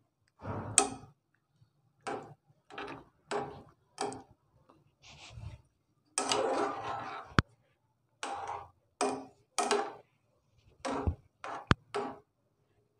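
Metal utensil scraping and knocking against a steel pan as green chillies are turned in simmering water: a dozen or so short scrapes with a couple of sharp clicks.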